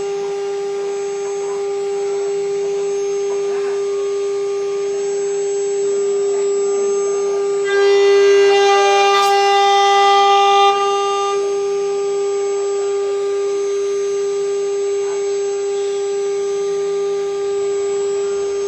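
CNC router running with a steady mechanical whine. About eight seconds in, the whine grows louder and brighter for roughly three seconds, then settles back.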